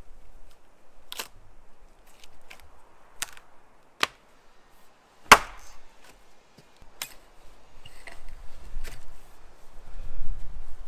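Axe blows striking wood, about eight or nine irregularly spaced chops, the hardest a little over five seconds in. A low rumble builds toward the end.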